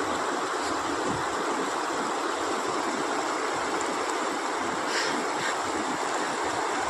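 Steady rushing of Kosi river floodwater, an even unbroken wash of noise.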